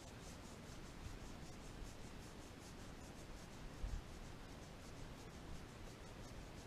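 Textured cotton round scrubbed against a pistol slide in quick, faint rubbing strokes, about three a second, wiping dried white nail polish off the engraved letters after color-filling. A soft low bump about four seconds in.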